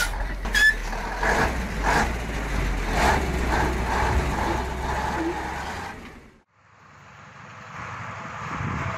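Heavy six-wheel off-road truck's engine running with a low, steady drone as the truck crawls through a trench. About six seconds in the sound cuts out briefly, then a loaded timber truck's engine is heard running.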